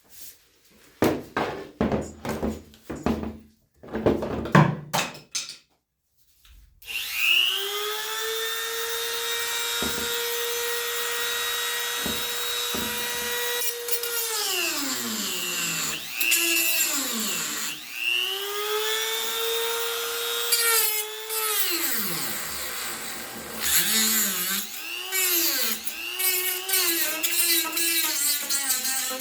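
A few knocks and clicks, then, about seven seconds in, a small high-speed rotary cutting tool spins up to a steady whine and cuts off melted-on plastic tabs. Its pitch sags each time it bites into the plastic and climbs again as it frees, several times over the second half.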